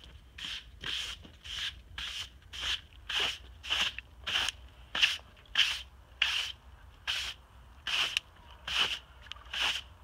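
Hand bench brush swept in a steady rhythm of strokes across the freshly sawn face of a redwood cookie slab, brushing off sawdust, a little under two strokes a second.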